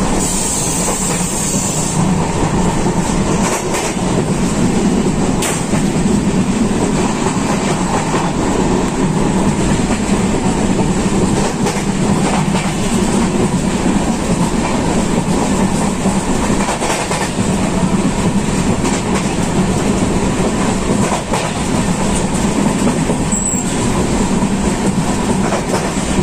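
Indian Railways passenger train running, heard inside the coach vestibule by an open door: a steady, loud running noise of the coach on the track. A brief high hiss comes in the first two seconds.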